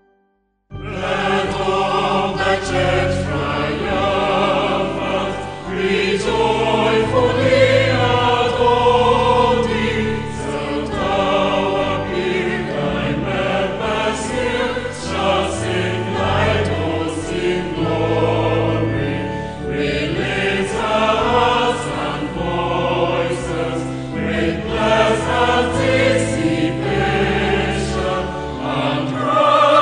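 Background music: a choir singing with accompaniment, starting just under a second in after a brief silence.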